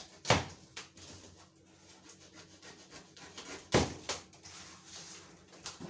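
Cardboard packaging of a washing machine being handled and opened: rubbing and scraping, with two loud knocks about three and a half seconds apart.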